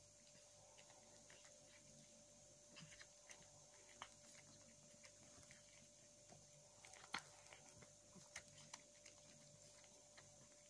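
Cat eating chunks of wet food in jelly from a plate: faint, irregular chewing and mouth clicks, with one sharper click about seven seconds in.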